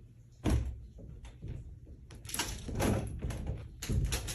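Several knocks and thumps, the loudest about half a second in, with more clustered in the second half.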